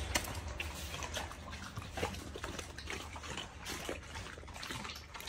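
A dog chewing raw chicken leg quarters: irregular wet crunching with sharp cracks.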